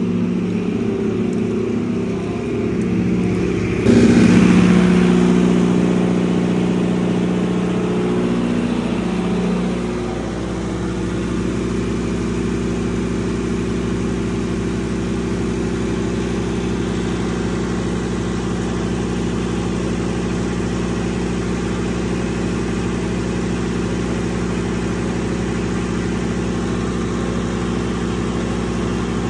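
Diesel standby generator running steadily under load, a constant engine hum. It rises sharply about four seconds in and settles back to a steady level after a few seconds.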